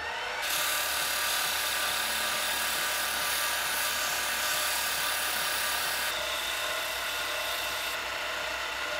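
Small lathe finishing coming up to speed, then running steadily with a wooden handle spinning in its chuck while sandpaper and then an abrasive pad are held against it: a continuous rough sanding hiss over the motor's whine. The sound changes abruptly about six and again about eight seconds in.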